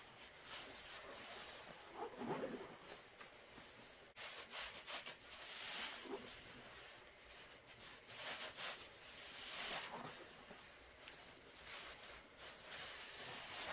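Gloved hand squeezing and scooping thick cleaner foam with a sponge: soft wet squelches and the fizzing crackle of the suds, coming in several separate swells.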